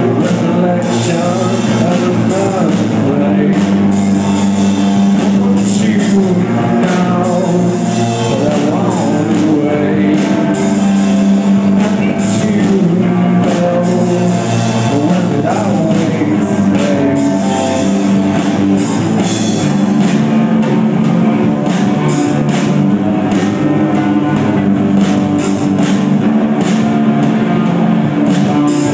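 Live rock band playing loudly: distorted electric guitar, bass guitar and drum kit with cymbals, with a singing voice over them.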